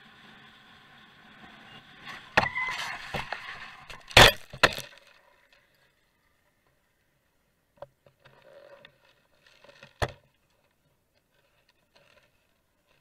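Motorcycle crash. A burst of clattering impacts starts about two seconds in, and the loudest crash comes about four seconds in with a second hit just after. Then it goes quiet apart from a few faint knocks.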